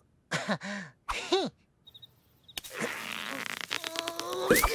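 Wordless cartoon-character vocal sounds, short grumbles with sliding pitch. Then a rustling noise with a string of clicks and a rising squeal near the end, cartoon sound effects.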